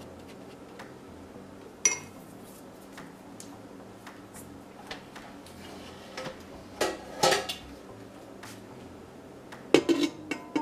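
Kitchen utensils and dishes clinking and knocking during food preparation. There is a single ringing clink about two seconds in, more clatter in the middle, and a quick cluster of the loudest knocks near the end.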